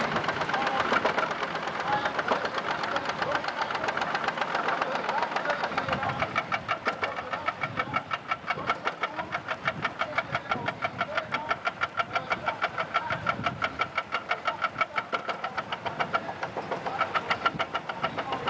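Vintage tractor engine running slowly with a very even, distinct beat of about five pulses a second, clear from about six seconds in; before that the engine sound is less distinct.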